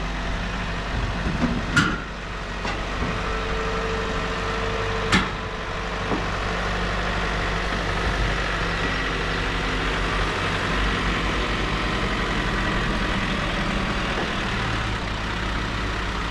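Diesel engine of a John Deere compact utility tractor running steadily as it drives up onto a steel gooseneck trailer, with two sharp bangs about two and five seconds in as it climbs on.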